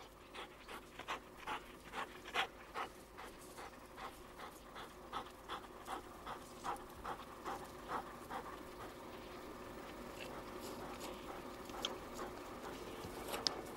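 English setter panting quickly, about two and a half pants a second, fading after about eight seconds.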